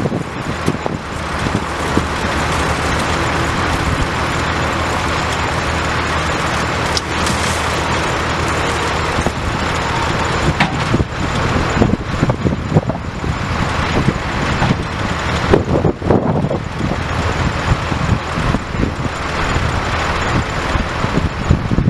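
Caterpillar C15 inline-six turbo diesel engine of a 2005 International 9400i dump truck, running steadily. Irregular knocks and clatter come over it in the second half.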